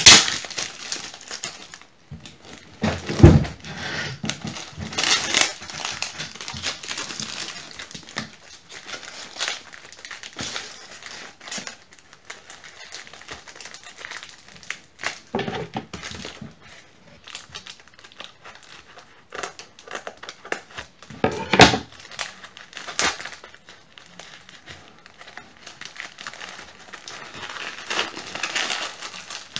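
Plastic wrapping crinkling and tearing as a tightly taped parcel is pulled apart by hand, with a few louder thumps in between.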